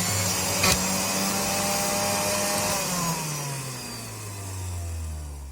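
Electric juicer motor running as it presses turnips for juice, with one sharp knock about a second in. About halfway through it is switched off, and its whine falls in pitch as the motor spins down.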